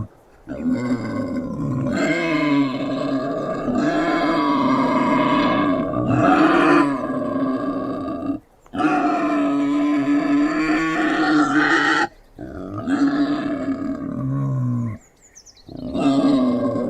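Wild boar grunting and growling in long, drawn-out calls, broken by brief pauses a few times.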